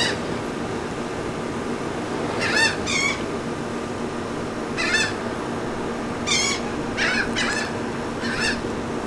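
Gulls calling: about seven short calls scattered through, over the steady hum of an air-conditioning unit.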